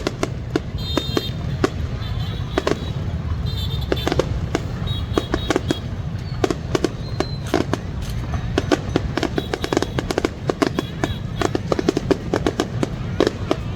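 Fireworks display: a dense, irregular barrage of bangs and crackling bursts over a constant low rumble, with a few brief high whistling tones.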